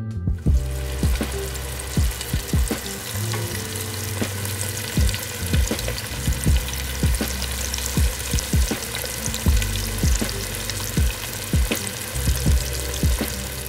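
Hot oil sizzling and crackling steadily as catfish pieces deep-fry.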